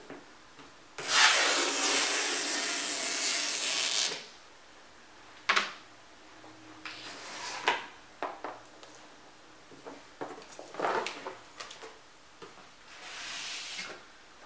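Cardboard pull-tab tear strip on an iMac shipping box being torn open in one long, loud pull of about three seconds. Then come scattered knocks and rubbing as the cardboard and packaging are handled, and a softer scraping slide near the end.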